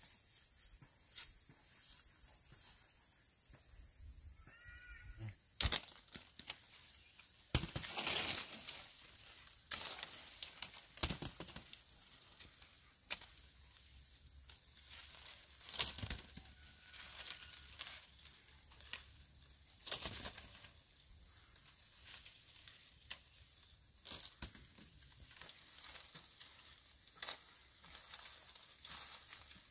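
Rustling with irregular sharp snaps and knocks a second or more apart, starting about five seconds in, just after a brief pitched call.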